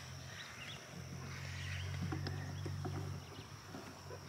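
Outdoor garden ambience: a steady high insect drone, a low hum that grows louder in the middle and then fades, and a few faint bird chirps and small rustling ticks.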